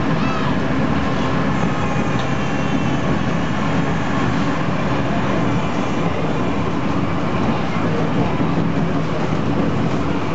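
Diesel railcar under way, its engine droning steadily under the rumble of the wheels on the track.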